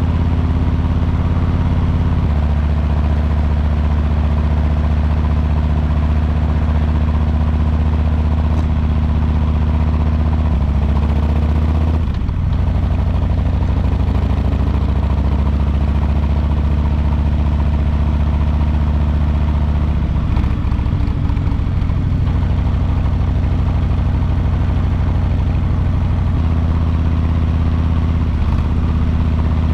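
2022 Harley-Davidson Low Rider S's Milwaukee-Eight 117 V-twin running under way at road speed, its exhaust note steady and loud. The engine pitch steps up or down a few times as speed and gear change, with a brief drop about twelve seconds in.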